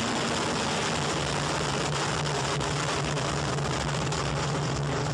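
Steady roar of a missile's rocket motor at launch: a dense, even rushing noise with a low hum underneath.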